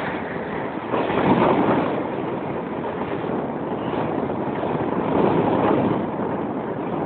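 A modern tram passing close by, a steady rushing rumble that swells twice as its cars go past, with some wind on the microphone.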